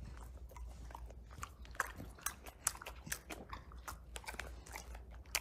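Bulldog chewing, a run of small irregular clicks and crunches over a faint steady low hum.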